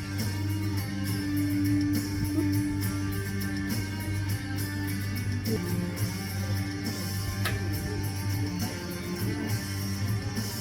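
Guitar-led music with strummed chords over a steady bass line.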